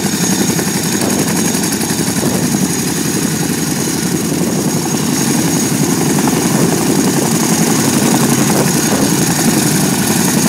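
CH-47 Chinook tandem-rotor helicopter running on the ground during start-up, its rotors turning with a fast, steady chop under a steady high whine. It grows slightly louder in the second half.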